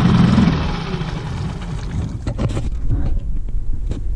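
Brand-new Tohatsu 6 hp outboard motor idling steadily on its first start, being run in with its lower unit in a tub of water.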